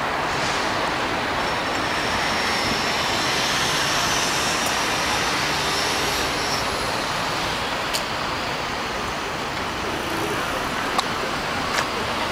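Steady city-street traffic noise, with a few faint clicks in the second half.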